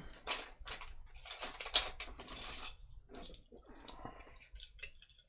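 Small hobby pieces handled on a workbench: a quick run of light clicks, taps and rustles, loudest about two seconds in and thinning out near the end.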